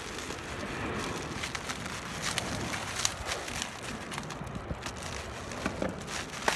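Bubble wrap crinkling and rustling as it is pulled off a parcel, with scattered sharp crackles.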